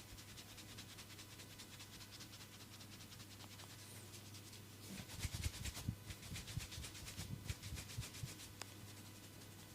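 Hands rubbing during a massage, faint and steady, with a louder run of quick rubbing strokes from about five to eight seconds in.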